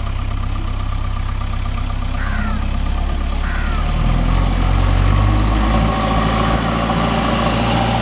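Heavy diesel machinery engine running steadily, its low drone growing louder and heavier about halfway through.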